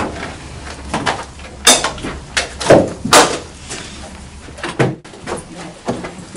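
A door being opened and shut: a series of sharp knocks and thuds, the loudest in the first half.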